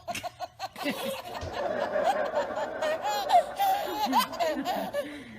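Baby laughing: a run of quick, evenly spaced giggles, then from about a second in a busier stretch of squealing laughter with overlapping voices.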